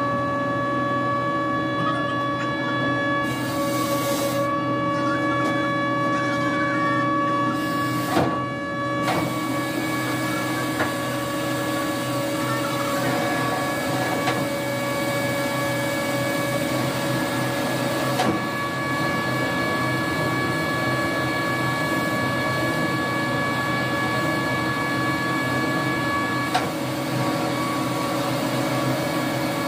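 Ship's mooring winch running with a steady whine of several tones over a constant hum, during unmooring. There are a few short knocks, and one of the higher tones cuts out a few seconds before the end.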